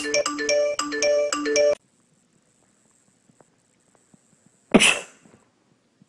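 A repeating melody of short notes, like a phone ringtone, stops about two seconds in. After a near-silent pause comes one short, sharp sneeze, the loudest sound.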